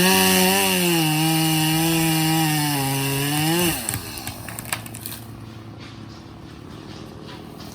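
Stihl MS170 two-stroke chainsaw running at full throttle, its pitch sagging slightly as it bogs under load cutting wood. It briefly speeds up as it frees, then winds down to idle a little past halfway, followed by a few light knocks.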